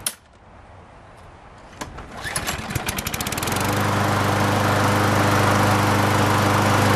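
Briggs and Stratton 6.5 hp single-cylinder four-stroke lawn mower engine being started: after a sharp click at the very start, it fires about two seconds in, the firing quickly speeds up, and from about three and a half seconds it runs steadily at full speed.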